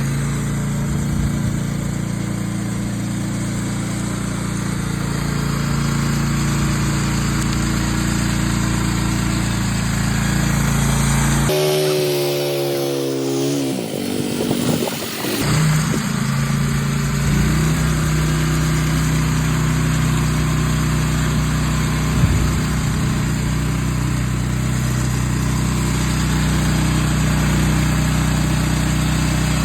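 A gas engine of job-site equipment running steadily. About twelve seconds in, its sound shifts for a few seconds with a wavering pitch, then it settles back to steady running.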